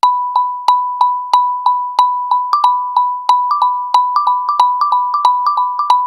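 A Google Pixel 2 ringtone: a bright, marimba-like note struck over and over, about three times a second, with a second, slightly higher note alternating in from about halfway.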